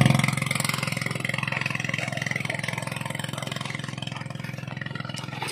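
A fishing boat's engine idling with a fast, even beat; it drops in level right at the start, then runs steadily. A few faint clicks near the end.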